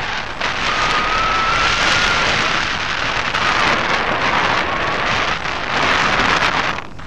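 Wind rushing over the microphone of a wing-mounted camera on a hang glider in flight, loud and steady. A thin whistling tone rises slightly about a second in.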